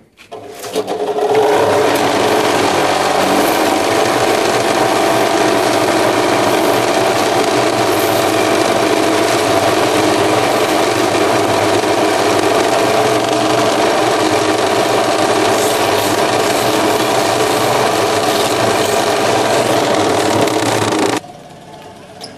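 Vibrating mould of a spring-mounted concrete block-making machine running, giving a loud, steady buzz as it shakes and compacts the concrete mix in the mould. It starts about half a second in and stops abruptly about a second before the end.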